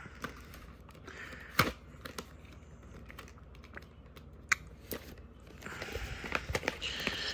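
Fingers picking and prying at a glued-shut VHS box: scattered clicks and taps, then a stretch of scraping and rustling near the end.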